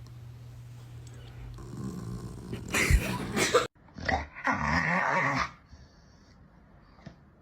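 A dog growling in two loud rough stretches, the second starting about four seconds in, after an abrupt cut.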